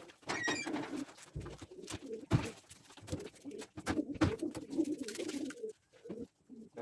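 Pigeons cooing in a loft of wire-mesh coops, a run of low, repeated coos, with scattered knocks and clicks from the coop fronts.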